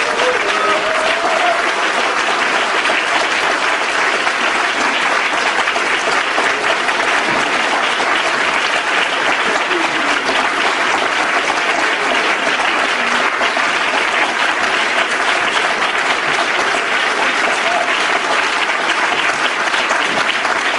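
Audience applauding steadily and at length, a dense, even clapping.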